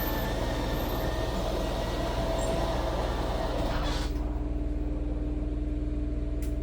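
RV slide-out room mechanism running as the slide extends, with a wide whirring noise that stops abruptly about four seconds in as the slide reaches its end. A steady low hum continues underneath throughout.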